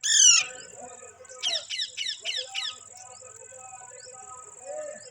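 Indian ringneck parakeet giving one loud falling screech, then a quick run of five short falling chirps about a second later. A steady high-pitched whine runs underneath.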